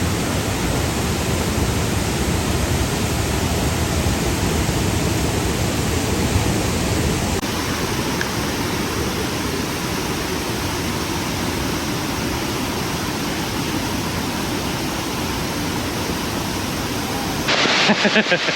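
A waterfall and creek in flood after heavy rain, its water rushing hard in a steady, loud hiss. The sound shifts abruptly near the end.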